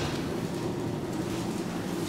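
Traction elevator car travelling in its shaft, heard from inside the car as a steady low rumble.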